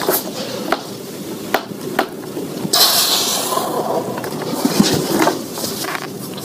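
A man exercising at floor level: several sharp knocks and bumps, and a long, hard, breathy exhale about three seconds in.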